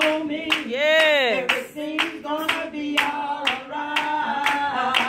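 Hand clapping on a steady beat of about two claps a second, with gospel singing over it.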